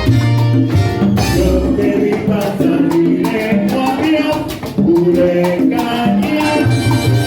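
Salsa band playing live: percussion and horns or voices over a moving bass line, in a continuous dense mix.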